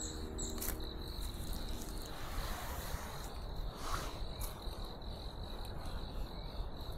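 Crickets chirping steadily in one unbroken high-pitched trill, over a low background rumble with a few soft rustles.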